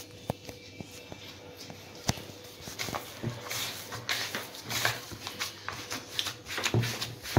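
Gloved hands kneading and squeezing a sticky crumb mass bound with condensed milk and butter in a plastic bowl, giving wet, crackly squelches. A few scattered clicks at first, then busier from about three seconds in.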